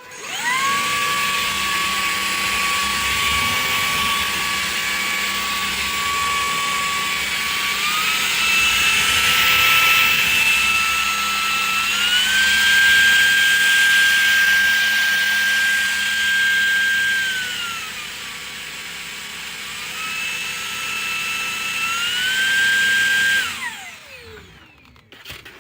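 Levoit LVAC-200 cordless stick vacuum's motor spinning up to a steady high whine. It steps up in pitch twice as it is switched through its three power settings, drops back to the lowest, and climbs through them again. It is switched off near the end and winds down with a falling whine.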